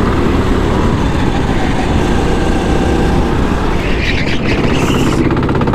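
Go-kart engine running hard at racing speed, heard from the driver's seat, steady throughout, with a brief brighter hiss about four seconds in as the kart turns into a corner.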